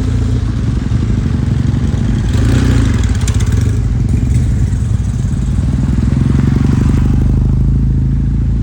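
Kawasaki W-series air-cooled parallel-twin motorcycle engine and exhaust running steadily, swelling briefly louder about three seconds in.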